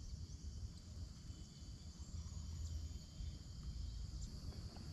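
Faint, steady chirring of insects in the waterside vegetation, over a low, uneven rumble.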